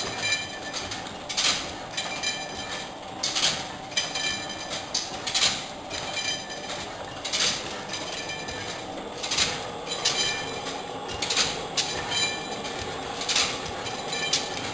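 1898 Furnival hot-tube-ignition gas engine running and driving a printing press through line shafting and belts: a steady mechanical clatter with a sharp clack about once a second.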